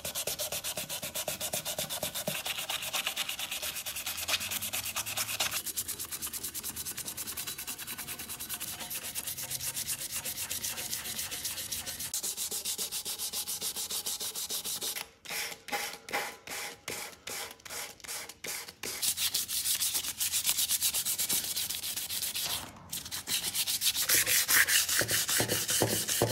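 Sandpaper rubbed by hand over a red-painted strut brace in quick back-and-forth strokes, scuffing the gloss off the finish ready for primer. The strokes turn slower and more separate about two-thirds of the way through, then grow louder near the end.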